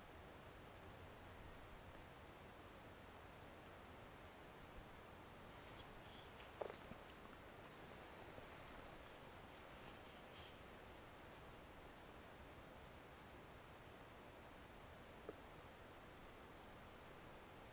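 Crickets chirring in one steady, high-pitched band. A sharp click comes about six and a half seconds in, and a fainter one a few seconds before the end.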